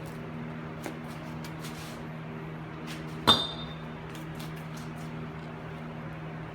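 Metal brake parts being handled during reassembly, with light clicks and one sharp metallic clink that rings briefly about three seconds in. Under it runs the steady hum of an electric fan.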